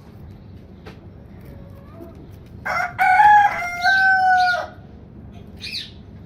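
Aseel rooster crowing once: a crow of about two seconds in several parts that ends in a long held note. A short, faint, higher bird call follows about a second later.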